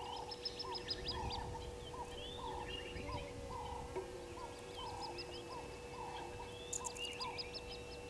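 Birds calling in the bush. One bird repeats a low note about twice a second, and quick series of high, sharp notes come near the start and again near the end.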